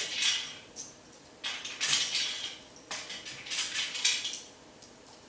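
Small hard track fittings (runners, a stopper, an eyelet) clicking and rattling as they are handled and fitted into the track, in a few short irregular bursts.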